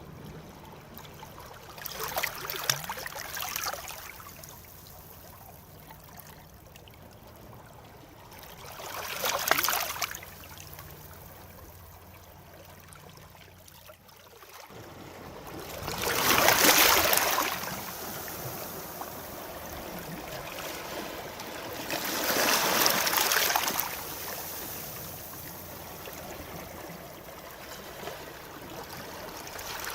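Sea waves breaking and washing ashore: four swells rise and fall, the third the loudest, with a steady wash of water between them.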